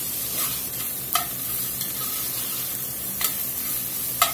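Diced onion, bell pepper and jalapeño sizzling in oil over medium-high heat in an enameled Dutch oven, stirred with a spatula that scrapes the pot a few times.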